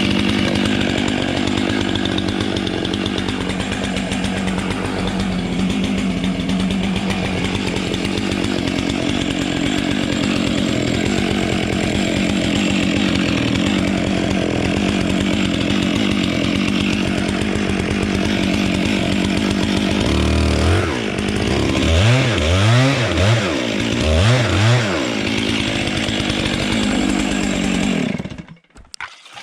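Chainsaw running steadily, then revved up and down several times and shut off near the end.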